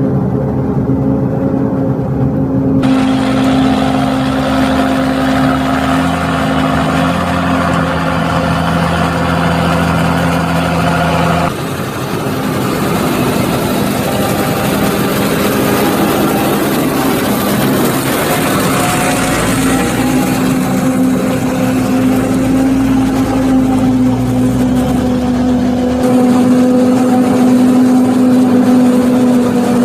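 Heavy farm diesel engines running steadily: Fendt Vario tractors hauling forage wagons alongside a New Holland forage harvester chopping maize. The steady engine drone shifts abruptly three times.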